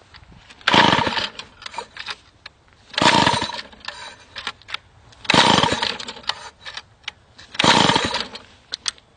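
Two-stroke chainsaw engine being pull-started cold: four hard yanks on the starter cord about two seconds apart, each a short cranking whirr, and the engine does not catch.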